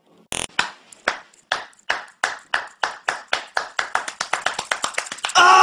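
Sharp knocks from a riveted, hinged metal silhouette cutout, a run of taps that speeds up from about three to about eight a second. A steady pitched tone starts near the end.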